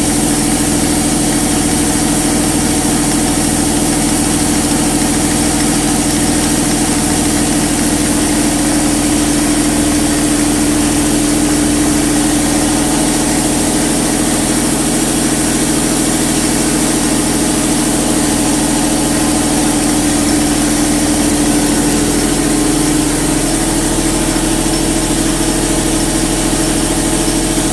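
Model traction steam engine running steadily on compressed air, turning its flywheel and driving a flat belt to a jack shaft, with air compressors running to keep up with the load. The steady mechanical hum rises slightly in pitch about 22 seconds in.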